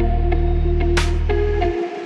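Electronic background music: a sustained synth bass line under a steady held tone, with a sharp cymbal-like hit about a second in; the bass drops out briefly near the end.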